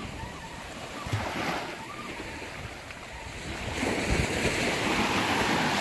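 Waves washing in against the jetty, with wind buffeting the microphone; the wash swells louder about four seconds in.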